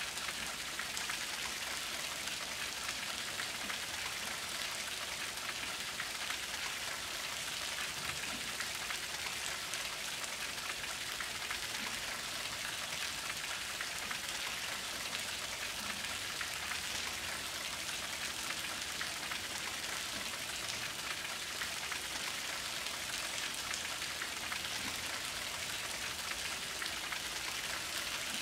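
Steady rain falling, an even hiss of drops that holds at the same level throughout.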